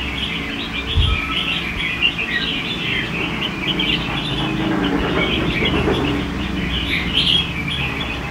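Red-whiskered bulbuls chirping and calling in a dense, continuous chatter of several birds, over a steady low hum. There is a low thump about a second in.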